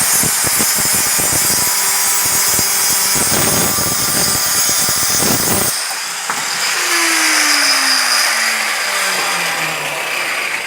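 Power tool running loudly, changing sharply about halfway through, then a whine falling steadily in pitch for a few seconds.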